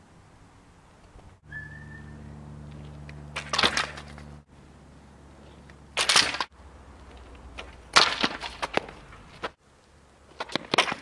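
BMX bike being ridden and landing tricks: several short, loud clattering impacts of frame, wheels and tires on the ground, spread across a few separate clips that cut in and out abruptly.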